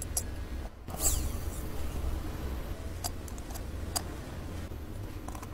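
Steel tweezers clicking and tapping against a mechanical watch movement as small parts are set in place: a few short, sharp metallic ticks, the loudest about a second in, over a steady low hum.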